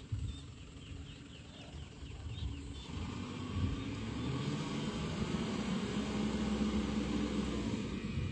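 Dump truck's diesel engine running while the truck is stuck on slick mud, growing louder about three seconds in as it works to pull free.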